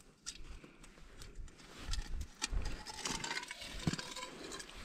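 Hand-hauling a set line up through a slush-filled hole in the ice: scattered light clicks, scrapes and crackles of line, ice and slush, getting busier about two seconds in.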